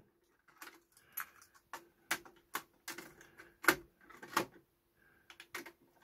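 Plastic clicks and clacks of a cassette being handled in the open cassette door of a Pioneer CT-656 cassette deck, with the door pushed shut. There are about a dozen sharp clicks, the two loudest clacks a little past the middle, over a faint steady hum.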